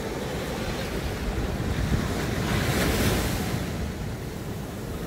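Ocean surf washing up a sandy beach: a wave's wash swells with a rushing hiss about halfway through, then eases as it spreads over the sand. Wind buffets the microphone, adding a low rumble underneath.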